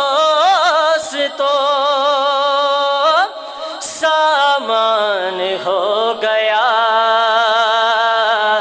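A man singing a naat unaccompanied into a microphone, drawing out long notes with a wavering pitch and ornamented turns between them.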